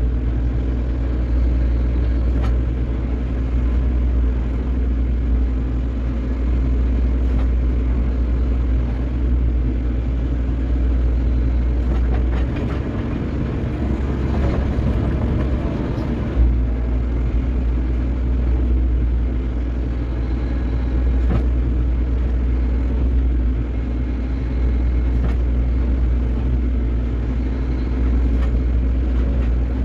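Excavator diesel engine running steadily under hydraulic digging work, a constant low drone. About halfway through, the low hum changes for a few seconds, with a rougher, noisier sound, then returns with a single knock.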